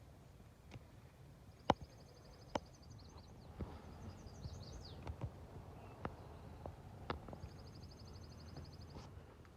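A songbird sings a high, rapid trill twice, each about a second and a half long. Scattered sharp clicks and scuffs of footsteps on the trail run throughout, the loudest click about two seconds in.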